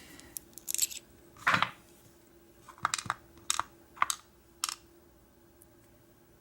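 Small metal parts of an American 1100 padlock clicking and tapping as the lock is taken apart: about seven or eight sharp, separate clicks in the first five seconds, the loudest about one and a half seconds in.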